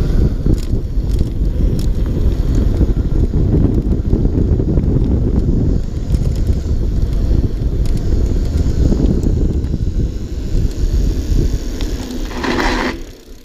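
Heavy wind rumble on the microphone as a mountain bike rolls downhill on a dirt and gravel track, with tyre crunch and scattered clicks and rattles from the bike. A brief louder hiss comes near the end, then the rumble drops away sharply.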